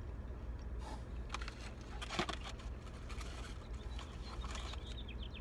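Small rustles and clicks of hands handling fried food and its packaging, over a low steady hum. Near the end a bird chirps rapidly.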